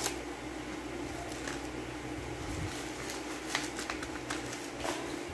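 Paper envelope being torn open and handled: scattered short crinkles and rips, bunched together a little past halfway, over a steady low hum.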